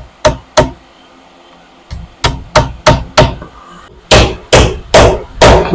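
Hammer driving 2-inch nails into a wooden brace of a table frame: sharp knocks about three a second, in three runs of three to five blows with short pauses between.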